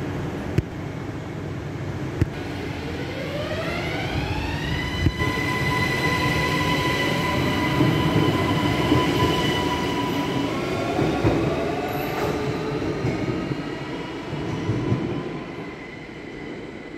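Electric S-Bahn commuter train pulling out of an underground station. Its motors whine up in pitch over a couple of seconds, hold a steady whine of several notes, then rise again briefly. The rumble of the wheels swells and fades away near the end.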